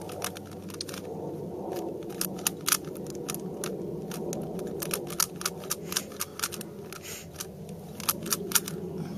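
Rubik's Cube being turned fast by hand in a speed-solve, its layers clicking and clacking in irregular quick runs of snaps. A steady low rumble runs underneath.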